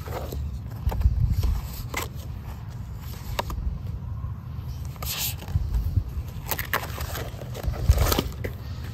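Photographs and plastic-sleeved sheet-music pages being handled and shifted in a binder: short paper scrapes and light clicks of fingernails, several times. Underneath is a low rumble of wind on the microphone that swells now and then.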